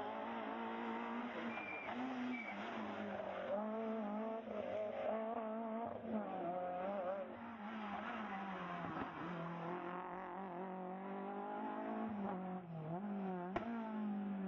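Rally car engine revving hard, its pitch climbing and dropping again and again as the car accelerates, changes gear and lifts off for the bends.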